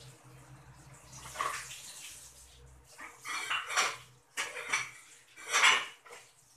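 Cassava leaves being washed by hand in a stainless-steel sink: several separate bursts of splashing water and wet leaves rustling, the loudest near the end.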